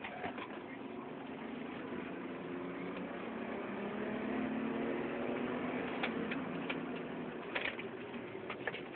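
BMW E30 320i's straight-six engine heard from inside the cabin while driving, its note rising steadily as the car accelerates and then easing off about five seconds in. A few sharp clicks come near the end.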